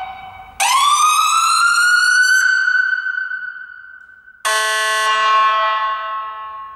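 Ambulance's Whelen electronic siren in manual mode: a wail tone rises in pitch for about two seconds while the button is held, then dies away once it is released. About four and a half seconds in, the siren's horn tone starts suddenly and fades.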